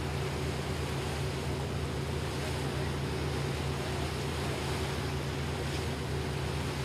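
A fireboat's engines running steadily under way, a low even drone, under a constant rush of wind and water.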